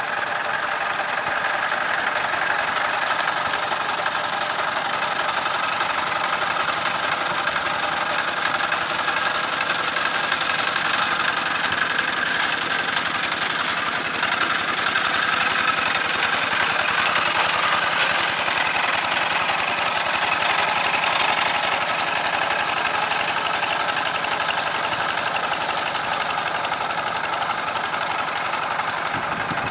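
Old Kubota walk-behind hand tractor's single-cylinder diesel engine running steadily under load as it pulls cage wheels through flooded paddy mud. It swells a little louder around the middle.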